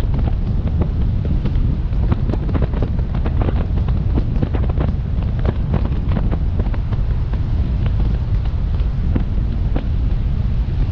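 Wind buffeting the microphone of a camera mounted outside a car moving at road speed: a loud, steady rumble, with many irregular sharp taps of raindrops striking the camera.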